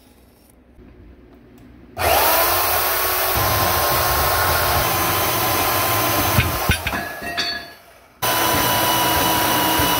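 Portable band saw cutting steel: the motor whines up to speed about two seconds in and runs steadily through the cut, then winds down. It starts again a little over a second later and runs on to the end.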